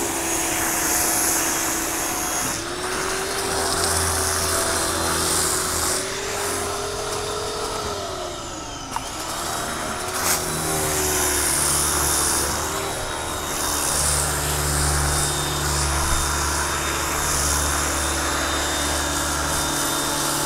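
Active 2.0 electric pressure washer running, its motor and pump giving a steady hum and whine that wavers in pitch, with the hiss of the foam cannon spraying over it.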